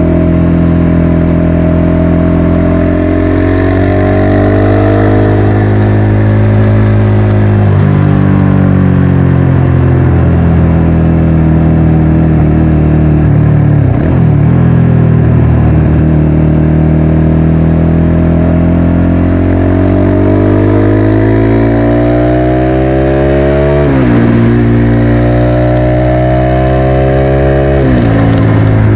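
Motorcycle engine running under way, its pitch climbing and easing off, with sudden drops in revs at gear changes about a third of the way in and twice near the end.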